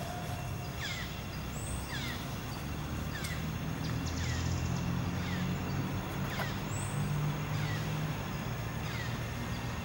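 Outdoor ambience: a short, high, falling chirp repeats roughly once a second over a steady low rumble.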